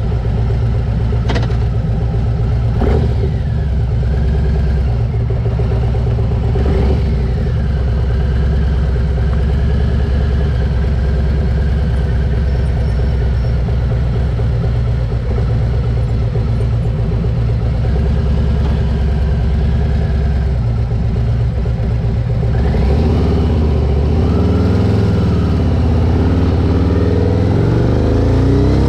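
A vehicle engine idling steadily, with three short knocks in the first seven seconds. In the last six seconds it revs up and down several times.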